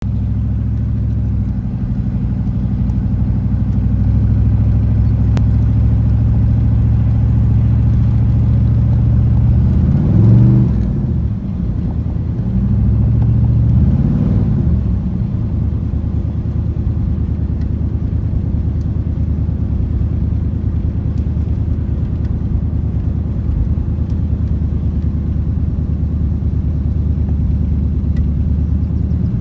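1988 Camaro IROC-Z's L98 5.7-litre V8 running as the car drives along, heard from inside the cabin. The revs rise and fall twice, about ten and fourteen seconds in.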